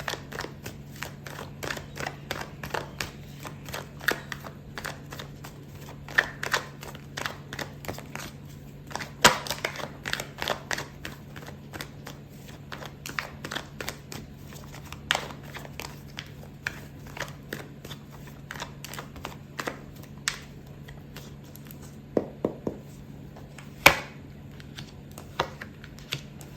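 A tarot deck being shuffled and cut by hand: irregular soft clicks and snaps of the cards, with a few louder slaps, over a faint steady low hum.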